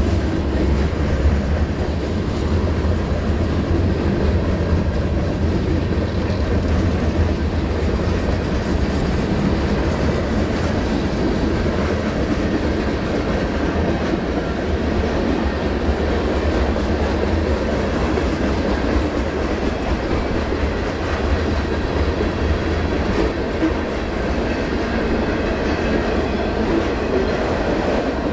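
Manifest freight train's cars rolling past on the rails: a steady, continuous rumble of wheels on track, heaviest in the low end, with no breaks or changes.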